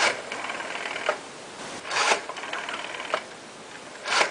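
Rotary telephone being dialled: the dial is swiped round with a short rasp, then clicks back with about a second of fast, even ticking. The swipe comes three times, about two seconds apart.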